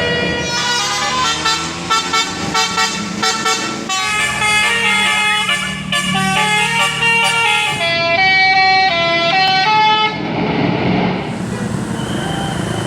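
Bus telolet basuri horn, a multi-trumpet musical air horn, playing a melody: a run of short pulsing notes, then longer stepped notes. It stops about ten seconds in, leaving road noise.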